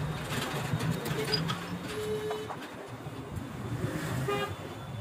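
Street traffic noise with two short vehicle horn toots, one about two seconds in and a shorter one just past four seconds, plus a few light clicks.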